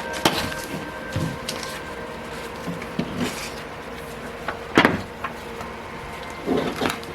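Cardboard box and packaging being handled and shifted, with scattered knocks and clicks and one louder knock about five seconds in.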